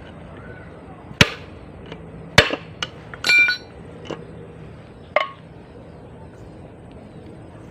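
Metal knocks and a ringing clink from work on a manual gearbox's steel parts during teardown: about six sharp separate knocks, the loudest about a second and two and a half seconds in, and a short ringing metallic clink about three seconds in.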